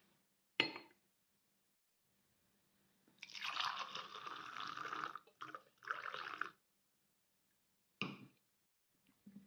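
A glass mug set down on a glass saucer with a sharp clink, then milk poured into the glass mug for about three seconds with a brief break. A single knock follows near the end.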